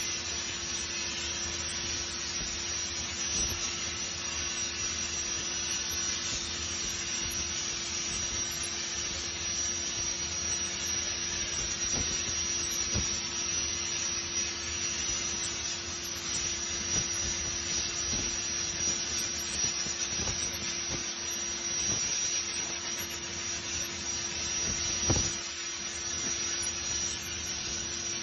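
Zinser pipe cutting machine's torch cutting through a 24-inch diameter tube: a steady hiss with a steady hum underneath, scattered crackles and one louder pop near the end.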